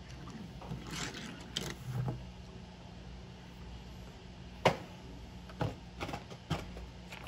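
Quiet handling of small die-cast toy cars on a wooden table: a single sharp click about four and a half seconds in, then a few fainter clicks and taps.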